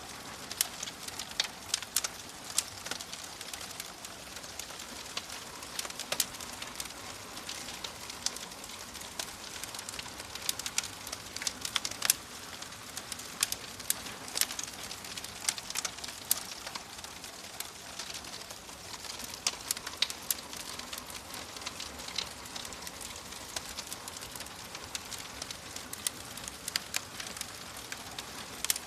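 Wood fire burning in a fireplace: a steady hiss with frequent, irregular sharp crackles and pops.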